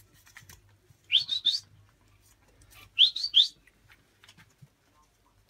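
Puppies squeaking while they feed: two bursts of three short, high-pitched rising squeaks about two seconds apart, with faint clicks in between.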